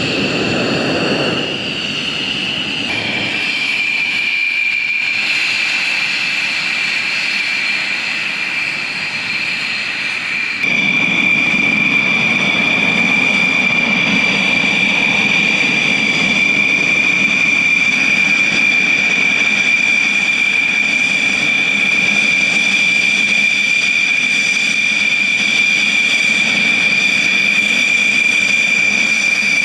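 Fighter jet engines running on the ground as the jets taxi: a steady high-pitched whine over a low rumble. The sound changes abruptly about three seconds in and again about eleven seconds in, and is louder after the second change.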